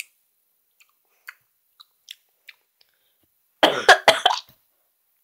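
A boy coughing into his hand in a rough burst of about a second near the end, reacting to a disgusting-tasting sweet. A few faint clicks come before it.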